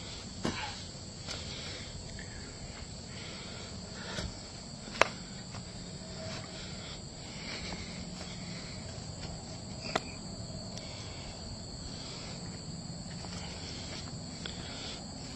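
Steady high trilling of insects in summer vegetation. A few sharp clicks and knocks of footsteps on the trestle cut through it, the loudest about five and ten seconds in.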